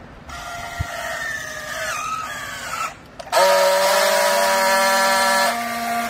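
Battery-powered handheld strapping tool working a plastic strap around a bale. Its motor whines for about three seconds while tensioning the strap, the pitch dipping slightly under load. After a brief pause comes a louder, steady buzzing tone for about two and a half seconds as it friction-welds the strap seal.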